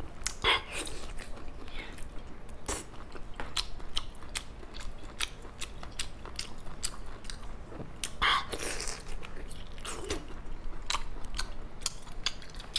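Wet mouth sounds of a person biting and chewing braised seafood: many small clicks and smacks, with a few louder bites about half a second in and again around eight and ten seconds.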